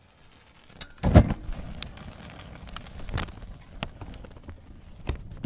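Fire crackling: scattered sharp cracks and pops over a low rumble, with a loud low whoosh about a second in.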